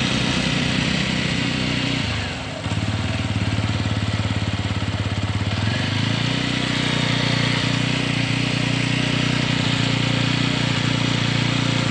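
TVS Apache RTR 160 4V's single-cylinder engine running steadily, after servicing for a chain and sprocket noise. The sound dips briefly about two seconds in and picks up slightly around six seconds.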